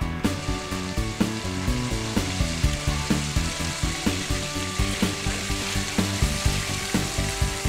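Background music with a steady beat, with a dense crackling hiss laid over it.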